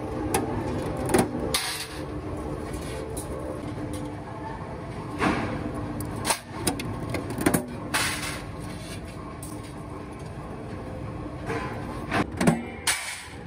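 Power press running with a steady hum while cutting chaff cutter blade blanks from old leaf-spring steel, broken by several sharp metal clanks and bangs of the die striking and steel plates being handled.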